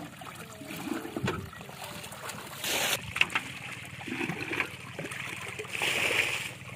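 Muddy water splashing and sloshing as a metal bucket is scooped through a shallow pool and emptied, with a rush of water pouring out near the end.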